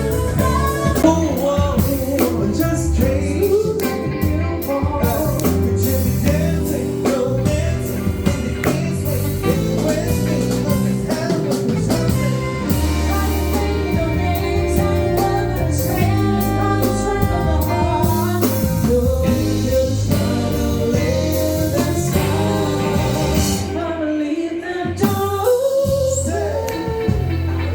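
Music with a singing voice over a band backing of steady bass and drums.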